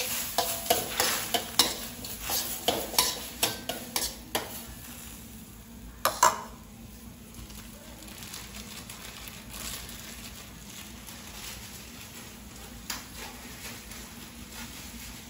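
Metal spoon scraping and clinking against a steel wok while stirring chopped apple snail meat with roasted chili, ending in a loud clank about six seconds in. After that the snail meat sizzles faintly and steadily in its juices in the wok.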